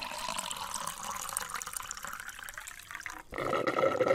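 Liquid running in a steady stream, like a drink being poured or dispensed. About three seconds in it cuts off and a steady mechanical hum with several held tones takes over.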